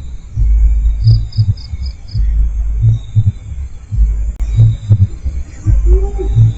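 A deep, throbbing double-beat pulse repeating about every second and a half to two seconds, like a heartbeat. Crickets are chirping faintly, with a short run of five chirps about a second in.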